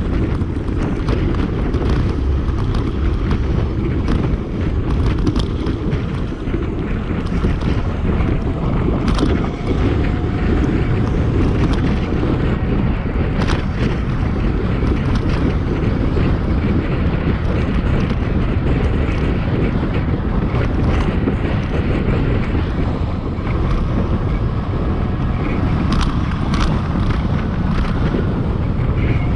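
Wind buffeting the microphone while riding an electric BMX bike, a loud, steady rumbling rush with scattered clicks and rattles.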